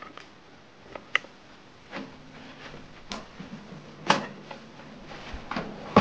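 A few light knocks and handling bumps, spaced about a second apart, as a plastic inkjet printer (Epson WorkForce Pro WF-3820) is gripped and turned around on a desk.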